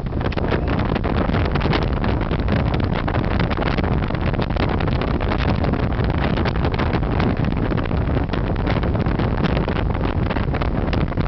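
Wind buffeting the microphone of a camera in a car moving at highway speed, a loud, uneven rushing over the car's road noise.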